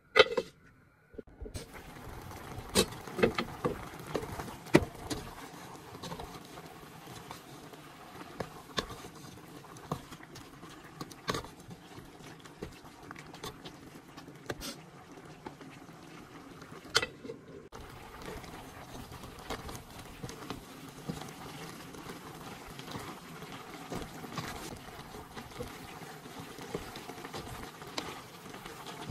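Pork simmering and sizzling in its spiced gravy in a pot, a continuous crackle and bubble, with a wooden spoon stirring and clacking against the pot now and then. A sharp clack right at the start.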